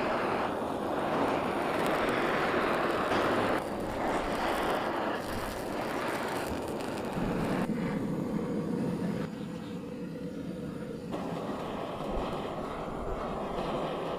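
Handheld butane blowtorch flame hissing steadily. Its tone and level change abruptly a few times, about 4, 8 and 11 seconds in.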